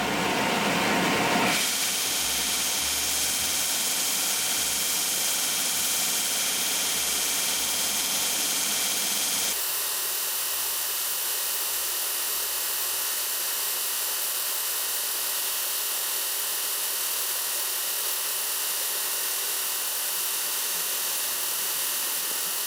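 Steady loud hissing noise, like a running machine, that shifts in tone about a second and a half in and again about halfway through.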